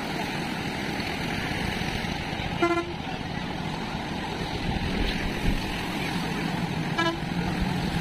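Steady rush of river water pouring over a weir. Two short vehicle-horn beeps sound about four seconds apart.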